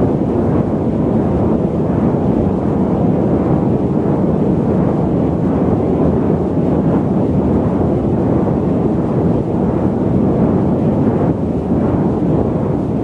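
Steady low rumble of airliner cabin noise in flight, a deep even roar of engines and airflow with no changes.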